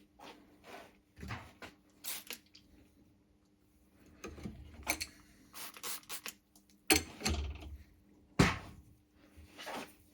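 Short knocks, clicks and rubbing of metal tools being handled, with quiet gaps between; the loudest knocks come about seven and eight and a half seconds in.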